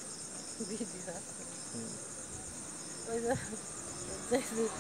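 Crickets chirping in a steady, high-pitched pulsing trill that never stops, with a few short snatches of quiet talk underneath.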